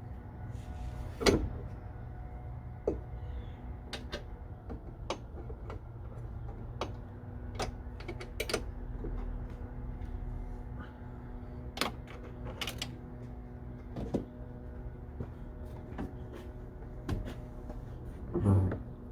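Scattered clicks and knocks of hand tools and metal parts being handled during a hood hinge replacement, over a steady low hum. The knocks are irregular, with the loudest about a second in and near the end.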